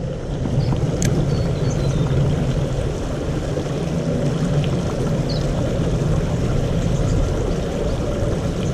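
Steady low rushing noise with a few faint, short high chirps.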